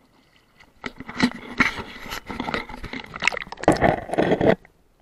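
Close-up splashing and knocking of creek water against a camera as it is plunged into the shallows. It is a rough, loud clatter for about three and a half seconds, then it cuts off suddenly as the microphone goes under.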